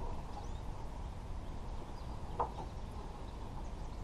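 A hand tool working a fastener at a pickup tailgate's hinge: one short click about two and a half seconds in, over a faint steady background noise.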